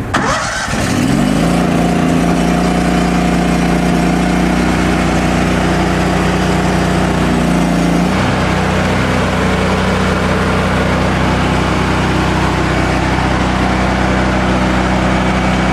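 Hot-water pressure washer running: its engine comes up to speed about half a second in and then runs steadily under a continuous hiss from the burner and water, with a slight change in the engine note about eight seconds in. The unit is cycling water through to heat it up.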